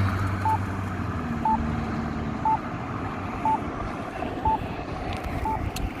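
Campbell accessible pedestrian signal push-button station sounding its locator tone: a short beep once a second, six times, during the don't-walk phase. Street traffic runs underneath, with a passing vehicle's engine hum fading out in the first couple of seconds.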